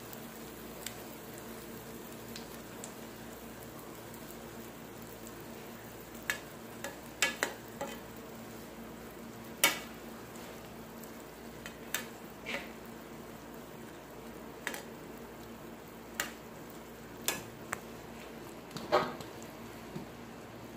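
Egg-and-potato batter sizzling gently in a frying pan on low heat. From about six seconds in, a metal spoon knocks and scrapes against the pan a dozen or so times at irregular intervals.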